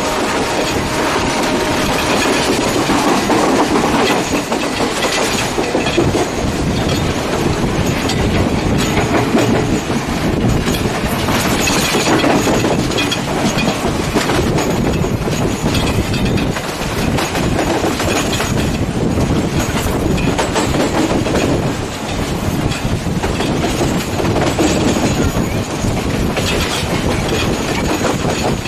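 Passenger train running along the line, heard from aboard a carriage: a steady rumble of wheels on the rails, with the repeated clickety-clack of the wheels over rail joints.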